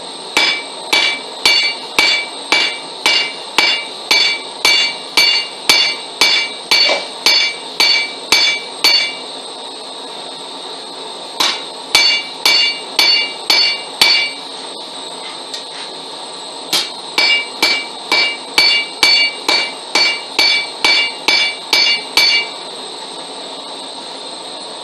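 Hand hammer striking hot steel rebar on an anvil, about two blows a second, each blow ringing. The blows come in three runs with pauses between them, over a steady background hiss.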